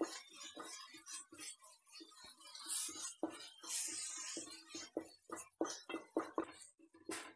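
Wooden spatula stirring thick onion-and-chilli masala in an aluminium pot: a string of uneven scrapes and knocks against the metal, some ringing briefly, with a few longer scraping strokes.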